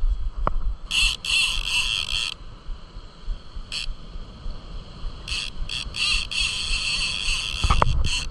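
Conventional fishing reel ratcheting in two long runs, the first about a second into the sound and lasting just over a second, the second near the end and lasting about three seconds, over wind rumble on the microphone.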